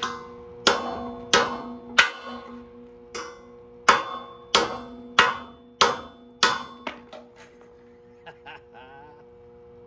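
Hammer blows on a steel root rake tooth, about ten steady strikes each ringing out metallically, followed by a few lighter taps: bending the welded tooth by hand, which isn't moving as hoped.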